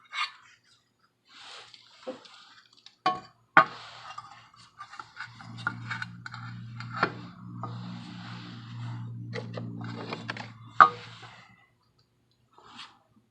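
Metal bench grinder parts and hand tools clinking and knocking as the grinder guard is refitted. A steady low hum sounds through the middle few seconds.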